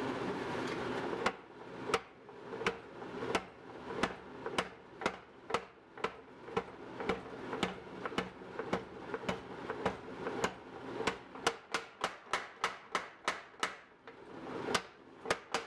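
Power hammer striking a hot 52100 and 15N20 Damascus billet over and over, flattening ground ladder-pattern grooves. The blows come at about two a second, quicken to about three a second, pause briefly near the end, then a few more follow.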